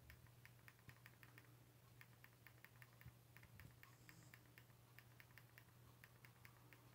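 Near silence with faint, quick clicks at an uneven pace of a few a second, the presses of TV remote-control buttons scrolling through a menu, over a faint steady low hum.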